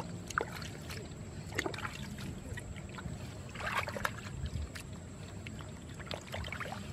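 Hands digging in wet mud and handling water hyacinth stems: short, scattered squelches, splashes and rustles, most of them a little past halfway, over a steady low rumble.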